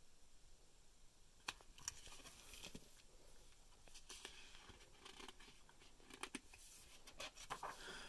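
Faint rustles and scattered clicks of a hardcover picture book's pages being handled and turned.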